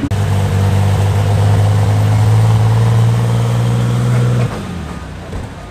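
Light super stock pulling tractor engine running with a steady, unchanging note. About four and a half seconds in, the note drops off sharply as the throttle comes back at the end of the pull.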